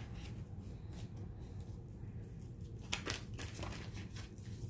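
Tarot cards being handled: faint rustling and a few light clicks, clustered about three seconds in, over a low steady room hum.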